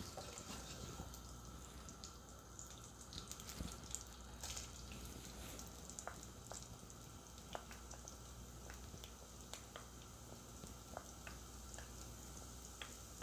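Crushed garlic frying gently in ghee in a wok: faint, irregular small sizzling pops.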